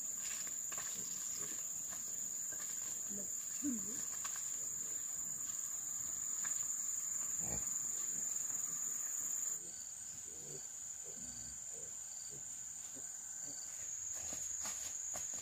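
Insects droning in one steady high-pitched tone, with faint clicks and rustles. About ten seconds in, the sound drops a little and a series of short, high peeps repeats about every half second for a few seconds.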